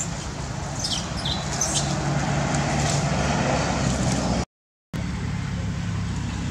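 Steady low rumble of a running motor vehicle, with a few short high chirps about a second in. The sound drops out completely for about half a second past the middle.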